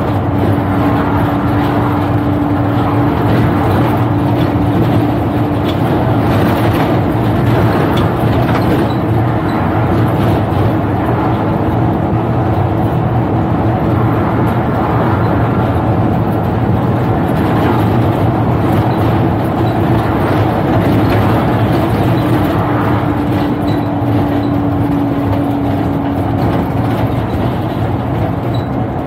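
Alexander Dennis double-decker bus running, heard from the driver's cab: a steady engine and drivetrain hum with a held tone that fades in and out, over road and tyre noise.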